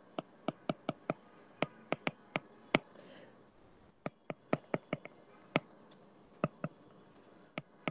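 Stylus tip tapping and clicking on a tablet's glass screen while writing by hand: a string of sharp, irregular ticks with short pauses.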